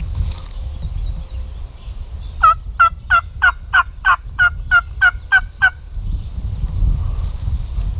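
Wild turkey yelping: a loud run of about eleven short, evenly paced yelps, each dropping in pitch, lasting about three seconds.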